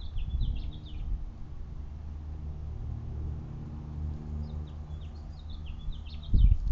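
A small songbird twittering in two quick runs of short, falling chirps, one at the start and another in the second half, over a steady low rumble. There is a thump near the end.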